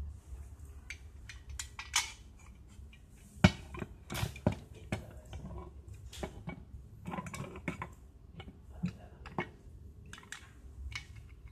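Irregular metal clinks and knocks from a Bervin BMB-A1932 steel TV wall bracket being handled, its arms folded and swung and its parts set down on a wooden desk. The sharpest knock comes about three and a half seconds in.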